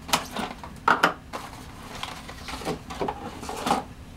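Irregular rustling and clicking of packaging and small plastic camera parts being handled, with a few sharper clicks near one second in and just before the end.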